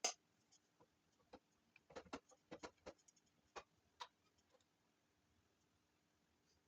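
Faint, irregular clicks and light knocks, about ten in all, from hand tools and small metal parts being handled during brake hub and caliper assembly. They stop about four and a half seconds in.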